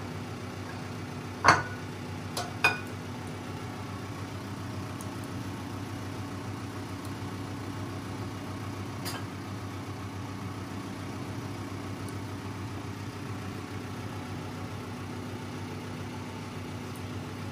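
A metal spoon clinks against a ceramic mixing bowl as sticky dough is scraped out. There is one sharp clink about a second and a half in, two smaller ones soon after, and a faint one about nine seconds in, all over a steady low hum.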